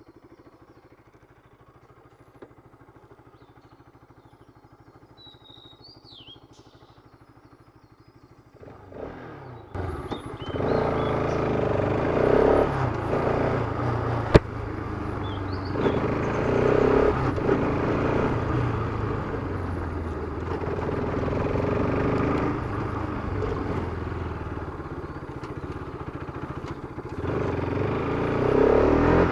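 Bajaj Pulsar RS200's single-cylinder engine idling quietly with a few faint high chirps over it, then from about nine seconds in revving up and pulling away, running loud and rising and falling with the throttle as the bike is ridden. There is one sharp click a few seconds after it sets off.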